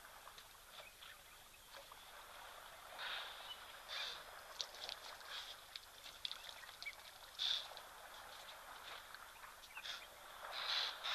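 Lioness lapping water at a waterhole: faint wet splashing laps in irregular bursts, with a quicker run of laps in the middle, over a faint steady high-pitched hum.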